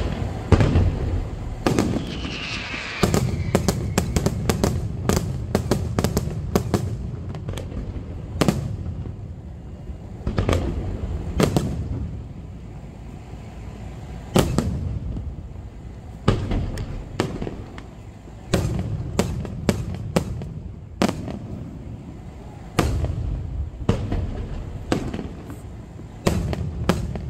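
Aerial fireworks display: shells bursting in an uneven run of sharp bangs, often several close together, over a continuous low rumble.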